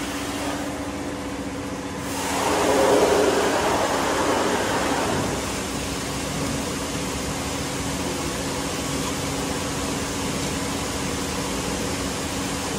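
Machine-shop background noise: a steady rushing hum from running machinery and fans, swelling louder for a few seconds about two seconds in.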